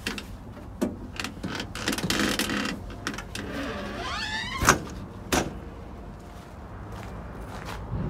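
Scattered clicks and knocks of something being handled, with a short rising squeak about four seconds in, followed by two sharp knocks.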